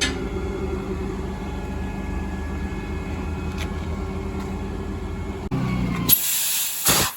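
An engine running steadily, then, after an abrupt break about five and a half seconds in, a loud hiss of compressed air near the end, as during tire work.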